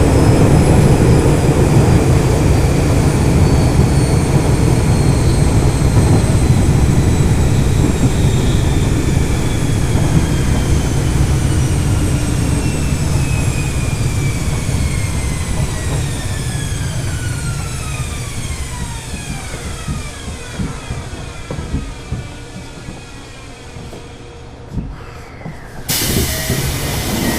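Toei 10-300R subway car's chopper-control equipment whining in several tones that fall steadily in pitch as the train brakes to a stop, over a rumble of wheels on rail that fades away. A sudden loud rush of noise starts near the end.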